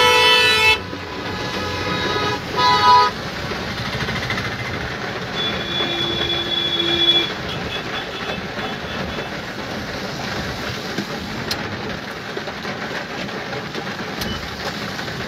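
Car horns honking in traffic: one long blare that ends about a second in, a short honk around three seconds, and a fainter, higher horn around six seconds. After that comes steady noise of heavy rain and tyres on the wet road, heard from inside the car.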